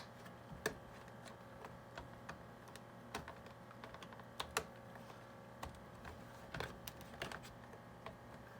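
Scattered light clicks and taps of hard plastic parts being handled and pressed together as a plastic snorkel is snapped onto an RC truck body by its pins. A faint steady hum lies underneath.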